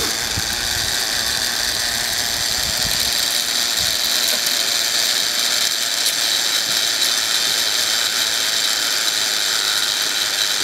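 Zipline trolley pulleys running along the steel cable as a rider glides in, a steady whirring hiss. A few low rumbles sound in the first four seconds.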